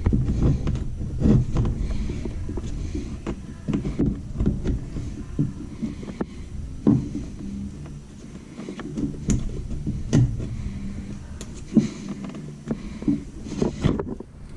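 Steel chisel paring old paint and wood from a cabinet hinge recess: irregular scraping strokes with sharp clicks and knocks.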